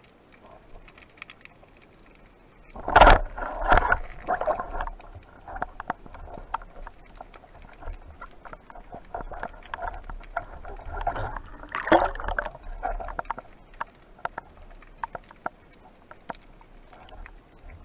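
Underwater sound through a camera housing on a wooden speargun. About three seconds in comes a sharp, loud crack, the speargun firing. Then there is a run of bubbling, gurgling water noise and many small clicks as the speared octopus is brought up, with another loud surge of water noise around twelve seconds in.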